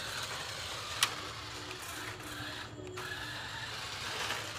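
Toy radio-controlled car's small electric motor and gears whirring faintly as it drives, with a single sharp click about a second in.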